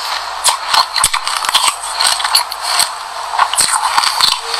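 Close-up chewing of a mouthful of sesame seeds mixed with passion fruit: a rapid, uneven run of small, crisp crunches and cracks.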